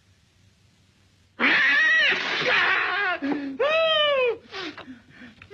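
A cat yowling and meowing: loud, drawn-out calls that rise and fall in pitch, starting about a second and a half in, followed by shorter meows.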